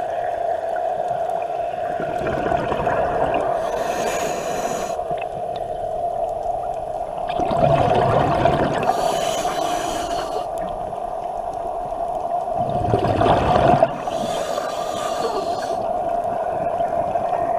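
Scuba diver breathing through a regulator underwater: hissing inhalations alternate with gurgling bursts of exhaled bubbles, about every five seconds, over a steady droning hum.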